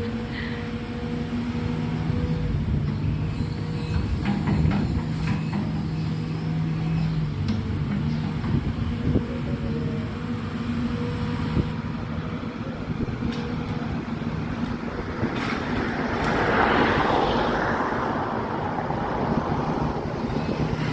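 Excavator engine running steadily while it works at a tree, with a few sharp knocks early on. About three-quarters through, a louder spell of rustling, rushing noise rises over the engine.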